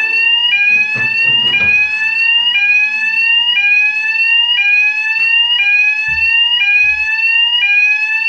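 Fire alarm sounding continuously: a shrill tone slides upward over about a second, drops back and starts again, repeating without a pause. A couple of dull low thumps come in about two-thirds of the way through.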